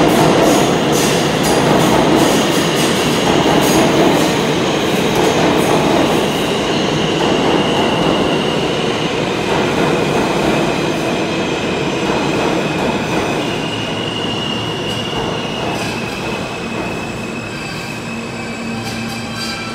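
R160 subway train on the far track of an underground station, its wheels rumbling over the rails with thin high wheel squeals coming and going. The rumble eases toward the end as the train slows.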